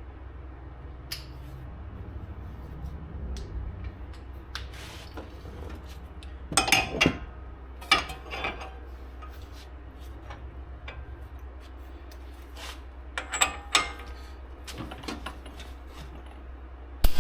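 Metal tools and parts clinking and clanking irregularly, with clusters of louder clanks about halfway through and again later, over a steady low hum.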